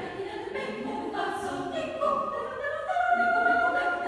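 Mixed chamber choir of men and women singing with the long ring of a large concert hall. The voices swell about halfway through into long held chords with a high sustained note on top.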